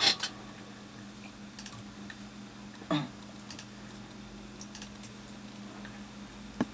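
A few scattered light clicks of a computer keyboard and mouse at a recording workstation, over a steady low hum.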